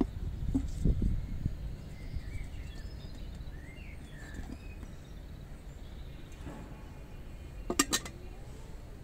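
A stainless steel pot handled on a wooden board: dull knocks in the first second and a half as potatoes tumble out of it onto the board, and a quick metallic clink of the pot near the end. Faint bird chirps in the background.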